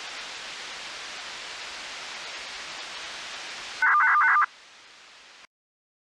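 Steady radio hiss from a software-defined radio tuned to the municipal disaster-prevention radio channel after its chime has ended. About four seconds in, a loud warbling two-tone burst lasts just over half a second. Then the hiss drops lower and cuts off to silence.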